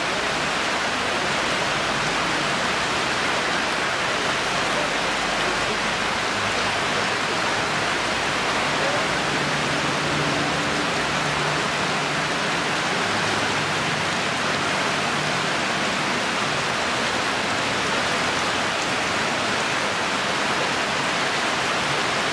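Heavy rain pouring steadily onto a wet paved street, a dense, even hiss.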